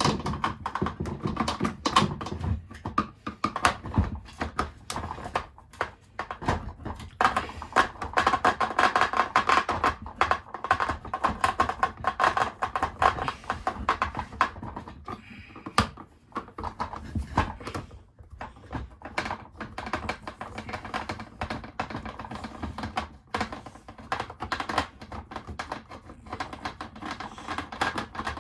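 Phillips screwdriver being turned by hand to back out deep-set screws from a plastic vacuum cleaner housing: rapid, irregular clicking and scraping of the tip and the plastic body.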